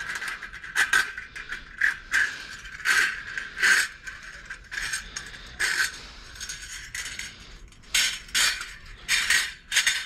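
Irregular metallic clinks and rattles, about a dozen sharp ones, as an electric heating element's coiled resistance wire and ceramic insulators are handled and worked with pliers. A steady high tone runs underneath.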